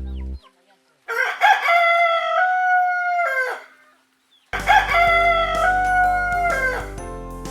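Rooster crowing twice, two long cock-a-doodle-doo calls about a second apart. Light background music cuts out at the start and comes back under the second crow.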